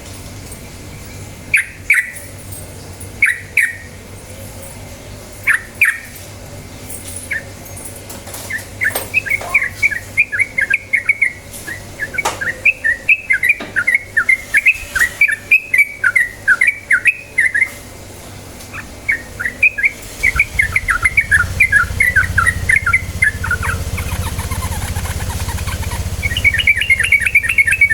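Yellow-vented bulbul (trucukan) singing: a few short separate calls, then long, fast rolling runs of chattering notes (the 'ropel' song used to lure young birds into singing). A steady low hum comes in about two-thirds of the way through.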